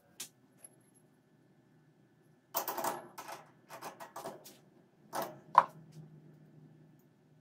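Metal clattering and clicks as a tube is clamped in a lathe's three-jaw chuck with a chuck key, ending in a sharp ringing metal clink about five and a half seconds in.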